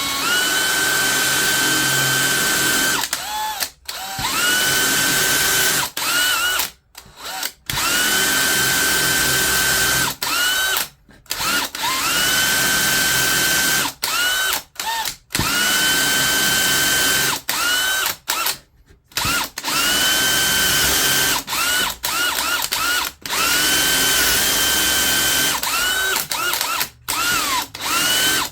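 Electric drill boring a 3/4-inch bench-dog hole through a drill-guide jig into a work-table top. It runs in bursts of two to three seconds, each starting with a rising whine that levels off, with short trigger blips between the bursts.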